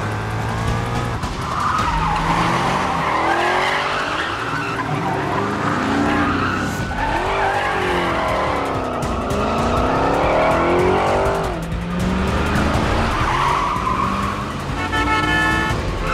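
Car chase: engines revving up and down and tyres squealing as cars skid through turns, over a music score.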